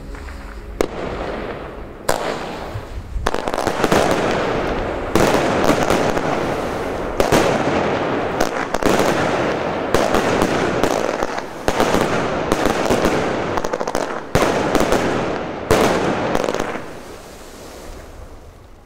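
Wolff Shanghai and BonFireworks Misterio firework cakes, chain-fused, firing shot after shot. Sharp bangs come about once a second, each trailing into the hiss of brocade and multicolour stars. It dies away over the last couple of seconds.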